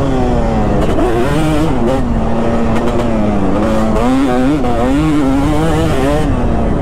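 2005 Kawasaki KX250's single-cylinder two-stroke engine being ridden hard, its pitch rising and falling over and over with the throttle.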